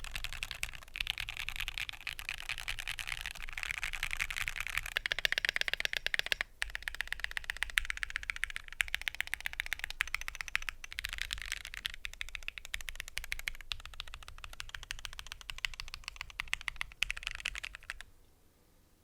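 Fast continuous typing on a modded Keychron Q2 mechanical keyboard with Gateron Cap V2 switches, dampened with PE foam and kilmat, with brief pauses, stopping about a second before the end. The mods have cured the board's case ping.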